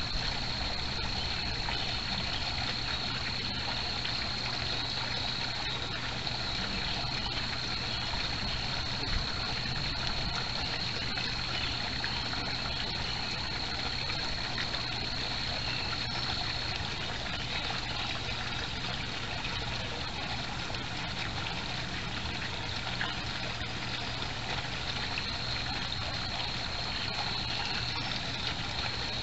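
Water trickling steadily in a backyard koi pond, an even running-water sound, with a thin high whine that drops out for a while in the middle.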